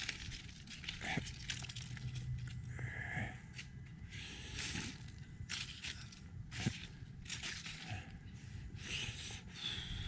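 Footsteps crunching through dry fallen leaves at a walking pace, about one or two steps a second.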